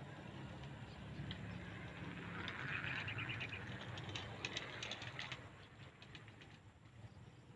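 Birds chirping, with a quick run of short high notes about three seconds in and scattered chirps after it, over a steady low rumble.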